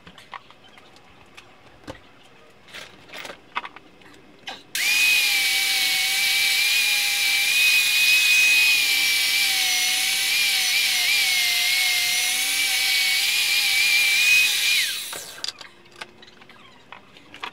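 Handheld angle grinder running on a plywood template: a loud, steady high whine with a gritty hiss that starts abruptly about five seconds in, wavers slightly under load, and spins down about fifteen seconds in. A few light knocks and clicks of handling come before it.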